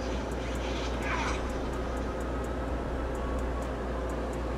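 Steady low background hum, with a short high-pitched call that falls in pitch about a second in.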